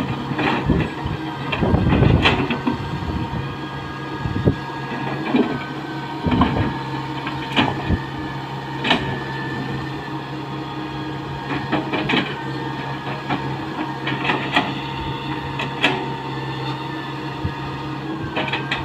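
Tata Hitachi 120H excavator working: a steady diesel engine hum with a high hydraulic whine that dips in pitch every few seconds as the load changes, and repeated short metallic clanks.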